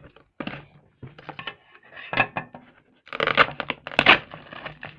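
Plastic toy packaging being handled, cut and torn open: irregular rustling, scraping and clicking, with the loudest burst of crinkling and tearing about three seconds in.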